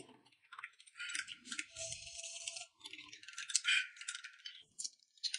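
Metal spoons clinking and scraping against small glass cups as a thick drink is stirred and spooned, in a fairly faint scatter of light rattling clicks.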